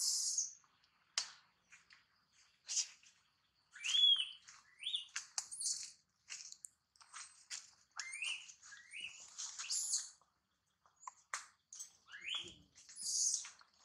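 Newborn macaque crying in short, high squeals that rise and then fall, several in a row, among quick high chirps and clicks.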